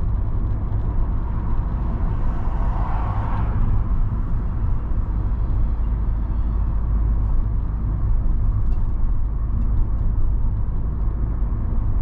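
Steady road and engine noise of a Ford car driving along, heard from inside the cabin, with a brief swell of hiss about two to three seconds in.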